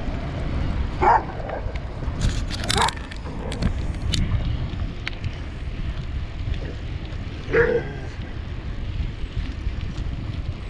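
A dog barking twice, two short barks about six seconds apart, over steady wind rumble on the microphone.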